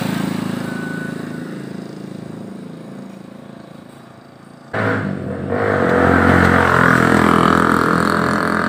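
A motor vehicle engine running, fading away over the first few seconds; about five seconds in, a louder engine sound with a hiss cuts in abruptly.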